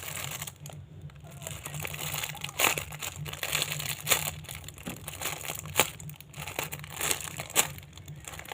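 Irregular crinkling and rustling handling noise, with sharp crackles scattered throughout, as things are handled close to the microphone, over a steady low hum.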